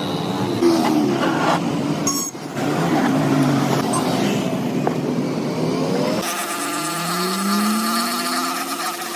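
A motor running with its pitch sliding up and down as its speed changes; the sound changes abruptly about six seconds in, and a rising pitch follows.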